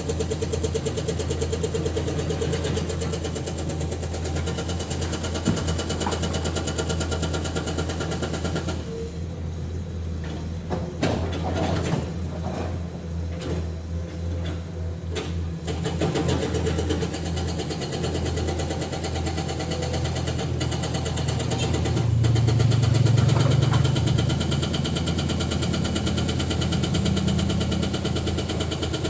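Heavy diesel engine running steadily, its low drone swelling louder for a couple of seconds about 22 seconds in.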